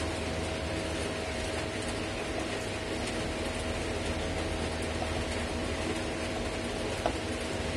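Electric fan running at full blast: a steady whirring hum with a constant tone. A single light click comes near the end.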